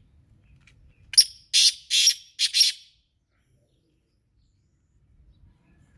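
Male black francolin giving its loud territorial call: five notes in about a second and a half, a short sharp first note followed by four longer, noisy notes in two close pairs.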